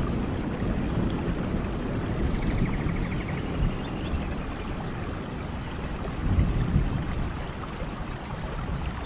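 Steady rain falling, with a low rumble that swells about six seconds in. A small animal gives short runs of four high chirps twice, about four and eight seconds in.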